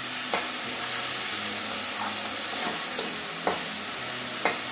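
Tomato chunks and spice paste sizzling in a steel kadai while a metal spatula stirs them, the spatula scraping the pan and knocking against it with a sharp click every so often.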